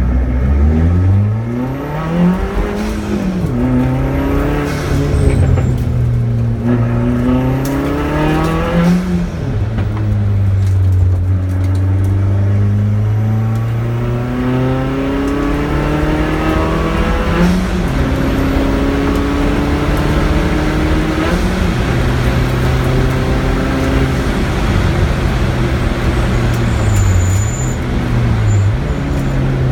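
Car engine driven hard on a race track, heard from inside the car: the pitch climbs under acceleration, drops sharply at gear changes, and holds steady through longer stretches, with two quick dips near the end.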